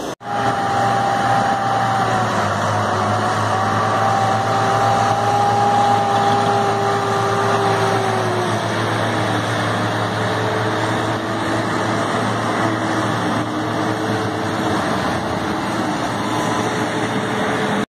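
Tractor diesel engines running, a steady drone with a held tone that sags slightly in pitch about halfway through.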